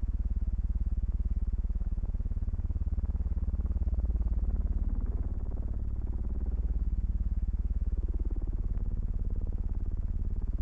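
Steady low mechanical drone with a fast, even flutter.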